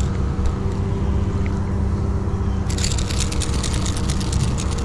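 Outboard motor idling with a steady low hum. About three seconds in, a burst of rapid clicking and rattling begins as the trolling plug is worked free of a hooked bluefish.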